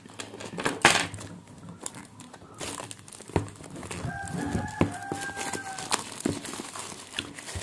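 A sealed cardboard phone box being handled and turned over, with rustling and light knocks. A rooster crows in the background about four seconds in, one call of nearly two seconds.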